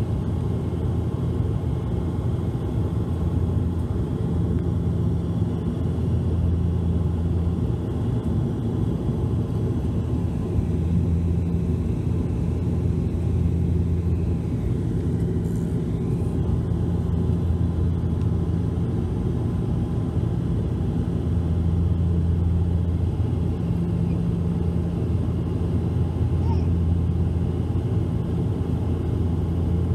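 Cabin drone of a Bombardier Dash 8-400 (Q400) turboprop in flight, heard from a passenger seat: a steady low propeller hum over engine and airflow rumble. The hum slowly swells and fades every few seconds.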